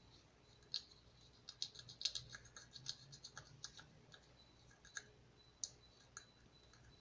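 Quick run of light clicks and taps from handling Play-Doh toy tools, thickest in the middle, with a few single clicks after it.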